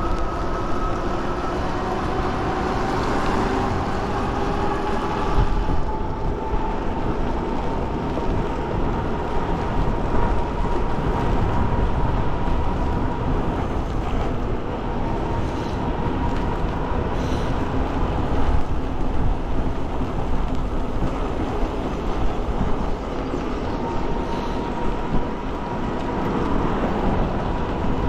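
E-bike tires humming on wet pavement under a steady rush of wind and road noise while riding; the hum is a thin tone that rises slowly in pitch over the first few seconds as speed builds, then holds.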